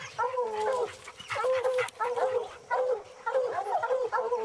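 Several hunting hounds baying, a string of drawn-out, overlapping calls that bend in pitch.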